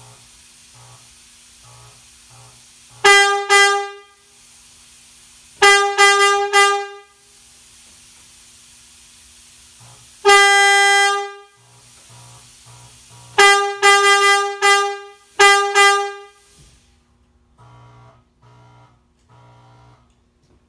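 Air horn blown on compressed air through a whistle valve: a single steady, buzzy note sounded in a series of blasts, mostly short ones in quick groups, with one longer blast of about a second near the middle.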